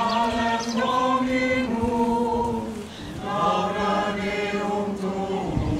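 Mixed church choir singing in harmony, with a short break between phrases about three seconds in.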